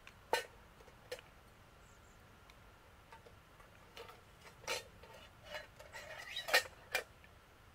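Light clicks, clinks and knocks of camping gear being handled, with some rustling. There is one sharp click just after the start and a lighter one about a second in, then a busier run of knocks and rustles in the second half.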